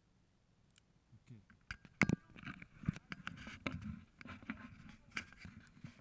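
Handling noise on the camera: sharp knocks and a scraping, rustling clatter as it is moved and swung round, starting after a quiet second and a half.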